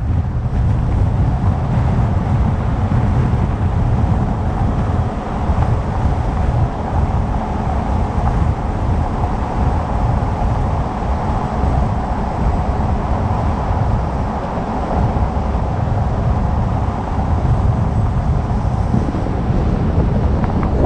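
Steady road and engine noise of a moving vehicle, with a heavy low rumble.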